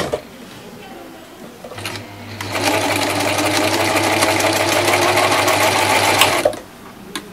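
Overlocker (serger) running at speed, stitching and trimming the edge of a piece of fabric. The motor hum starts about two seconds in, the machine runs steadily for about four seconds, then stops.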